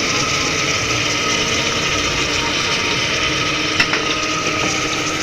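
Steady kitchen noise while spices cook in oil: an even hiss with a faint hum under it, and one sharp click about four seconds in.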